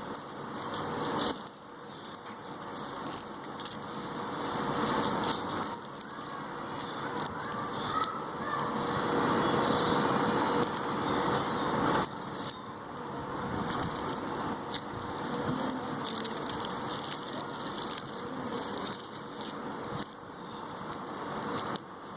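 Plastic candy packaging crinkling and rustling as it is handled and opened, with many small crackles and clicks.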